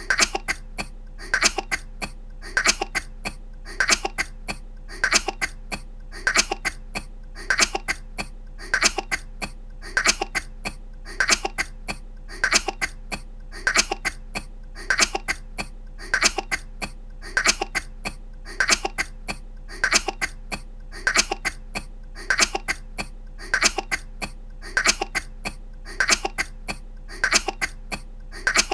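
A young woman's short, dry coughs repeated in a tight loop: a burst of two or three coughs about every second and a quarter, over and over.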